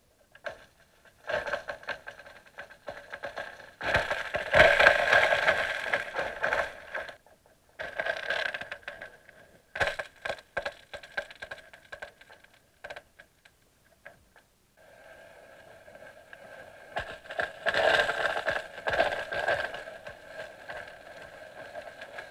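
Newly forming first ice cracking, heard underwater: bursts of dense crackling separated by scattered sharp clicks and short pauses.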